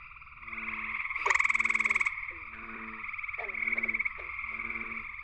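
Gray treefrogs (Hyla versicolor) calling in a chorus: overlapping rapid trills. One close male's loud trill, just under a second long, stands out about a second in.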